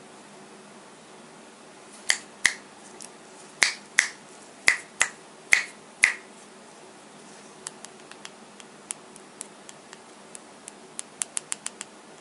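Finger snaps, eight of them in quick pairs, then a run of lighter clicks that come faster near the end.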